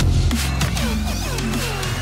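Electronic dance music in a dubstep style: a steady bass line with drum hits and repeated falling synth sweeps.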